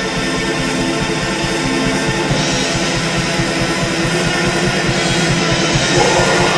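Recorded metal band track: distorted electric guitars holding chords over fast, driving drums, with cymbals coming in more strongly a couple of seconds in.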